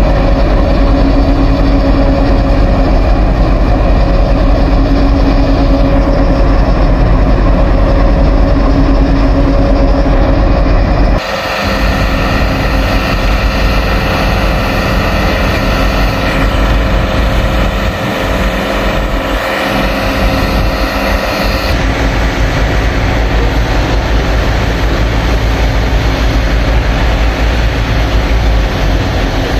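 WDG3A diesel locomotive's engine running with a steady, loud hum and heavy rumble. The sound changes abruptly about 11 seconds in and again near 22 seconds.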